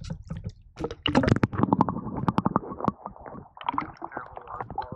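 Water splashing and gurgling at the surface as a large smallmouth bass is released by hand and kicks away, a dense run of irregular splashes busiest a second or two in.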